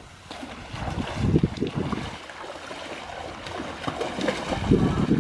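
Wind buffeting the microphone in irregular low gusts, over a steady hiss of moving water.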